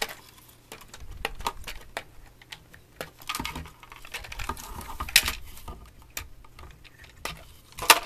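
Diagonal cutters snipping the wires inside a corded telephone, heard as irregular sharp clicks, mixed with the rattle and scrape of the plastic housing being handled; the loudest snap comes near the end.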